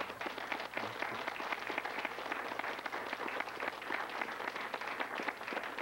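Studio audience applauding: a dense, steady patter of many hands clapping.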